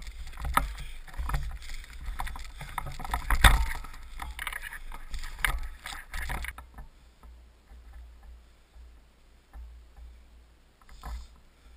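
Footsteps through dry grass while carrying a rifle with the camera riding on it: irregular crunches, grass swishing and knocks from the jostled gun over a low rumble. About six and a half seconds in it goes quieter, to occasional soft steps and rustles.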